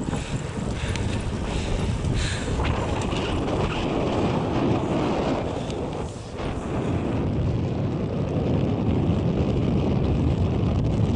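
Wind buffeting the microphone of a camera moving alongside a cyclist: a steady, deep rush, with a brief dip about six seconds in.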